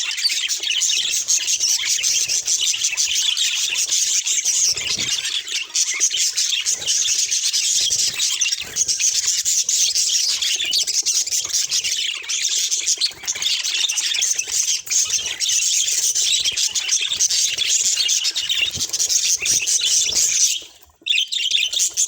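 Budgerigars chattering and warbling in a dense, continuous stream of high-pitched squawks and chirps, which breaks off briefly near the end.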